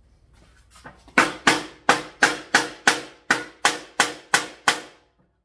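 A mallet striking the spine of a small heat-treated knife blade, driving it into 3/4-inch plywood: a steady run of about a dozen sharp blows, roughly three a second. This is a hammer-in test of the blade's heat treat and temper.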